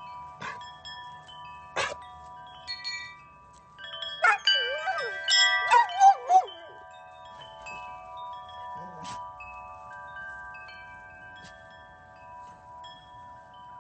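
Metal-tube wind chime struck by dogs bumping into it: a few single strikes, then a flurry of clanging about four to six seconds in, the tubes ringing on and slowly fading. A dog gives a short wavering howl along with the flurry.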